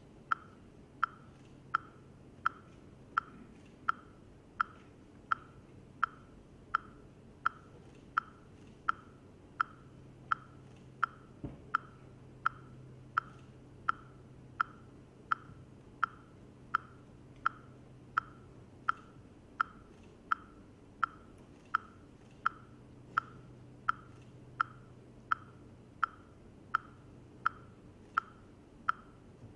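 A steady metronome-like tick beat: a short, bright click repeating very evenly, about once every 0.7 seconds, marking the pulse for the dance.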